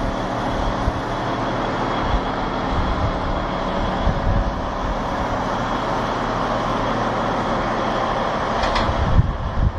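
Large wheel loader's diesel engine running steadily as the machine climbs the ramp onto a low-bed trailer, with a short sharp sound and a thump near the end.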